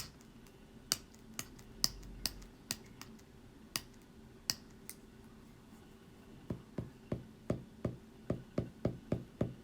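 Typing on a keyboard: single sharp key clicks at irregular intervals, then a quicker run of duller taps, about four a second, in the last three seconds.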